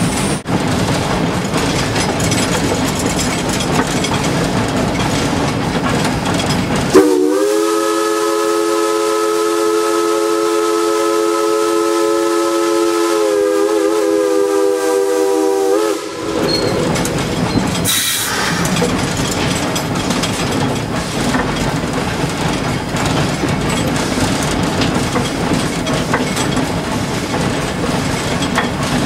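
The steam whistle of narrow-gauge 2-8-2 steam locomotive No. 190 gives one long blast of several tones sounding together, about nine seconds, starting about seven seconds in. Before and after it, the locomotive's steady running noise fills the cab while under way, with a brief hiss shortly after the whistle.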